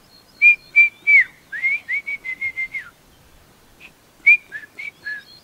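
A man whistling a tune by mouth: a quick run of about ten clear notes, a pause, then a few more notes near the end.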